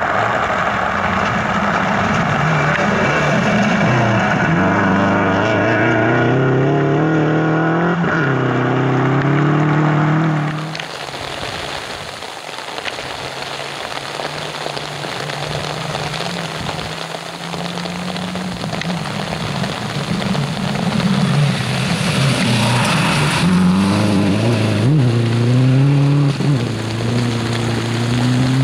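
Rally car engines at full throttle, revving up through the gears with quick upshifts as the cars drive the special stage. A steady hiss of heavy rain and spray runs underneath. The engine sound drops away about a third of the way in, then builds again to its loudest near the end as another run comes by.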